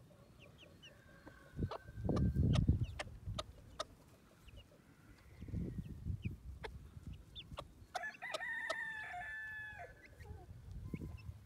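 Brahma chicks peeping in short high cheeps while their hen clucks, with a drawn-out crowing call about eight seconds in. Two bursts of low noise on the microphone, around two and six seconds in, are the loudest sounds.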